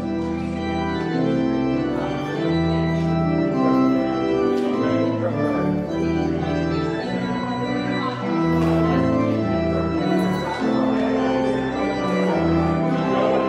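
Organ playing the postlude at the end of a church service: full, held chords over a bass line that moves from note to note.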